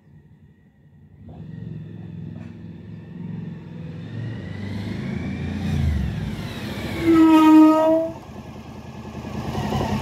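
Suzuki DL1000 V-Strom's V-twin engine approaching, growing louder. About seven seconds in, a loud pitched brake squeal lasts about a second as the bike brakes: sintered brake pads setting up a harmonic resonance. The engine runs on as the bike pulls up.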